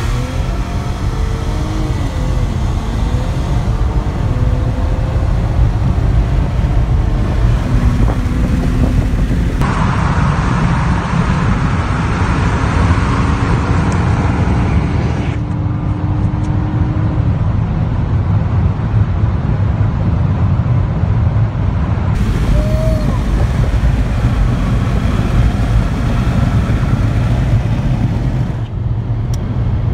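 Cars accelerating hard at full throttle, heard from inside the cabins: engine drone under loud wind and road noise, the engine tone rising slowly in pitch. The sound changes abruptly several times as the footage cuts between the Nissan Maxima's and the Mercury Montego's interiors.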